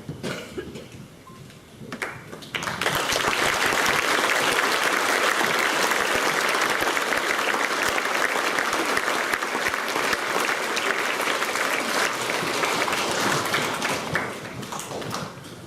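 Audience applauding, starting about two and a half seconds in and dying away near the end.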